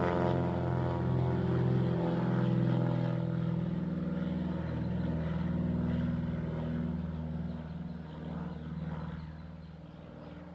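Two airplanes passing overhead, their engines making a steady drone that fades away over the last few seconds.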